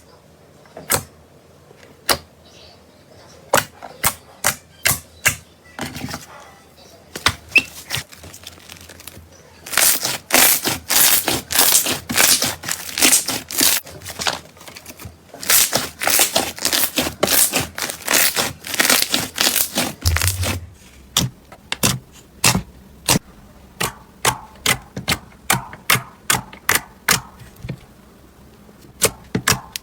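Slime being squeezed and poked by hand, giving sharp clicking pops. The pops are scattered at first, come thick and fast through the middle stretch of about ten seconds, then thin out again to a steady patter of single clicks.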